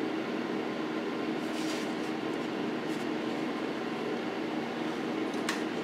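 Electric fan running with a steady hum, with a few faint, brief high-pitched sounds about a second and a half, three and five and a half seconds in.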